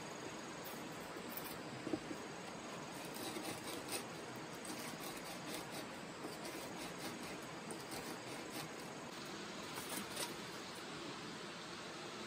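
Steady outdoor hiss with light clicks and knocks scattered through it.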